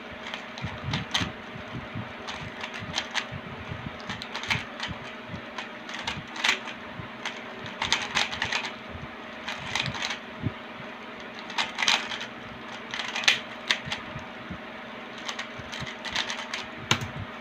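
A 3x3 Rubik's cube being speed-solved by hand: bursts of rapid plastic clicking and clacking as the layers are turned, broken by short pauses, over a steady background hum.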